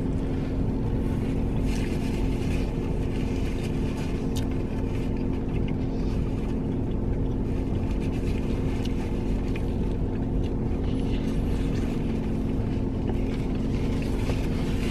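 Steady low hum of a parked car's engine idling, heard from inside the cabin.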